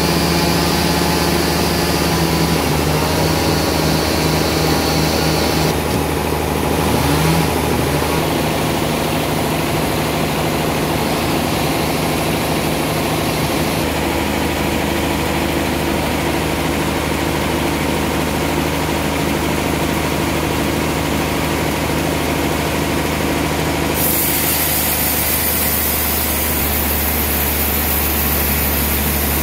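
Sawmill machinery running steadily: a two-stroke chainsaw runs at speed in the first seconds, then a steady motor hum continues. The sound changes abruptly several times.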